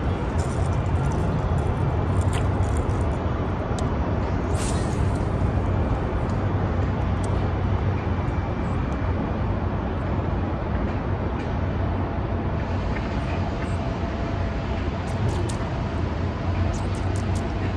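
Steady low rumble of road traffic, with a few faint ticks near the end.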